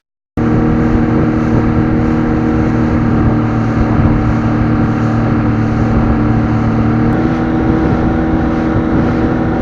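Outboard motor of a 1990 Nitro bass boat running steadily at speed across the lake, its pitch stepping up slightly about seven seconds in.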